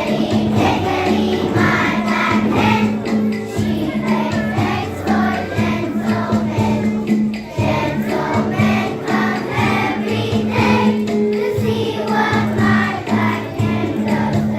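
A song: voices singing a melody over an instrumental backing with a steady, repeating bass note.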